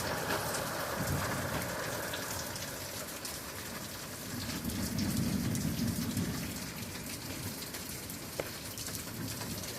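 Steady rain falling on a surface, with a low rumble swelling about halfway through.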